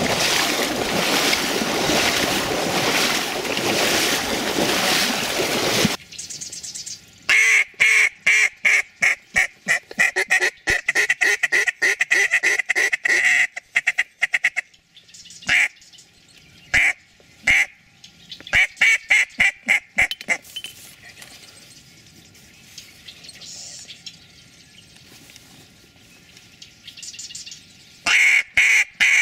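Wading through shallow marsh water and dry reeds: steady swishing and sloshing that cuts off about six seconds in. Then a handheld duck call blown in quick strings of quacks, with a few single quacks between and one more string near the end.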